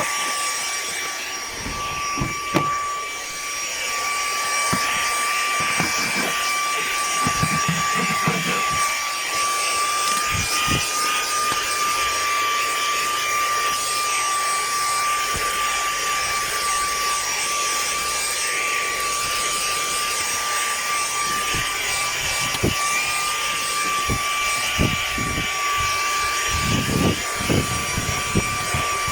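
UWALK handheld car vacuum running steadily: a high motor whine over a rush of air, with scattered low knocks and bumps.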